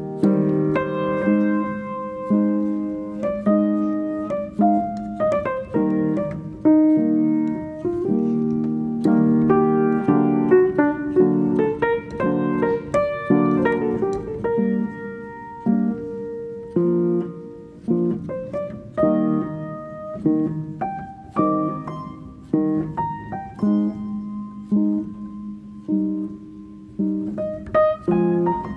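Background piano music, with notes and chords struck in a steady flowing succession.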